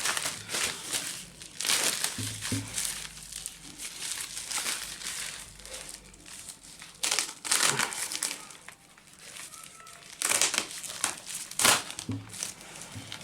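Packaging crinkling and rustling in irregular bursts as it is handled and unwrapped, loudest near the end.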